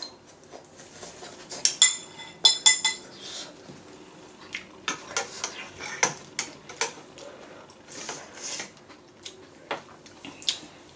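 Eating utensils clinking and tapping against bowls and dishes during a hotpot meal, with a few bright ringing clinks about two seconds in and softer scattered taps after.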